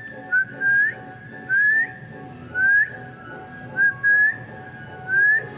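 Alexandrine parakeet whistling a short rising note, repeated about once a second, and twice a quick shorter note comes just before the longer one.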